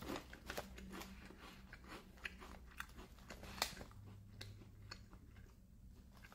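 A person chewing crunchy protein chips: a run of faint, irregular crunches.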